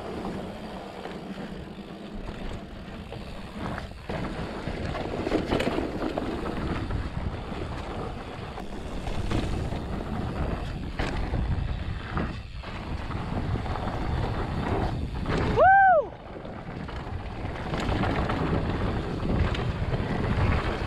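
Wind buffeting the microphone over the sound of mountain bike tyres rolling fast on a dirt trail, with a few knocks from the bike over bumps. About three-quarters of the way through comes one short, loud pitched squeal that rises and then falls.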